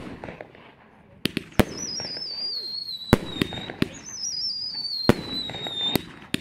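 Consumer fireworks firing: sharp bangs of bursting shots, about eight in all, with a wavering whistle falling in pitch about two seconds in and another about four seconds in.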